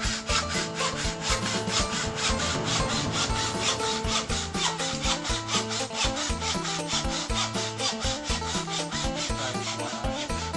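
Hacksaw cutting across a bamboo rocket tail pole in quick, even back-and-forth strokes.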